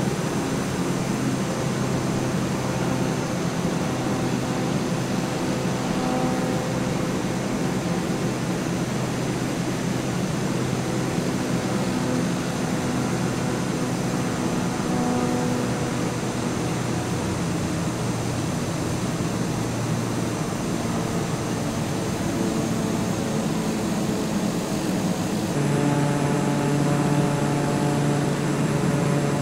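A steady engine drone with a low hum and several held tones over it; the tones shift a little in pitch about 25 seconds in.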